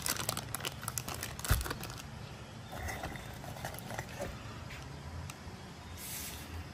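Cardboard packaging and a plastic bag being handled: a quick run of crinkling and rustling clicks, a single knock about a second and a half in, then quieter rustles.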